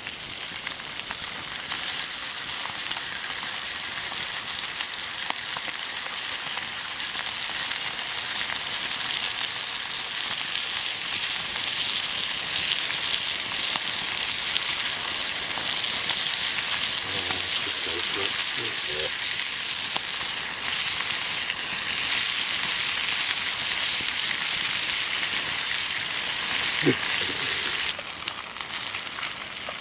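Breakfast meat sizzling in a frying pan over a campfire: a steady, hissing fry that starts as the food goes in and drops off sharply near the end.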